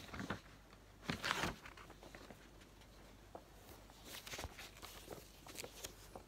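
Sheet of paper and a marker being handled close to the microphone: a few short rustles and light knocks, about a second in, around four seconds and again near five and a half.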